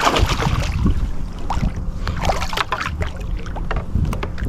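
Irregular splashing and small knocks at the water's surface as a hooked bass is fought and brought in, over a low rumble of wind on the microphone.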